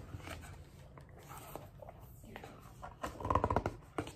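Pages of a picture book being handled and turned, with quiet paper rustling and a brief louder patch about three seconds in.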